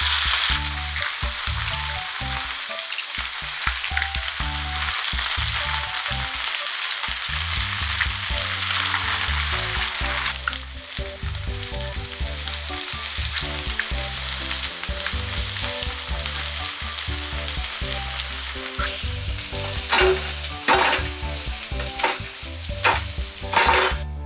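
Shredded-potato balls deep-frying in hot oil, with a steady, dense sizzle that eases a little partway through. Near the end come several sharp clicks and knocks, from a utensil against the pan or the balls being turned.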